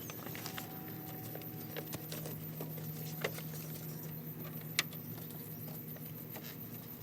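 Small metallic clicks and light rattles of a car door latch and its cable being handled and clipped together inside the door, with two sharper clicks about three and five seconds in, over a steady low hum.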